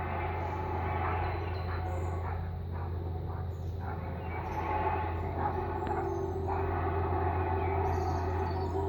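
Unidentified steady low drone in the open air, with wavering tones above it and a steadier tone that sets in about six seconds in: the kind of sound reported as a strange sound from the sky. Small birds chirp over it.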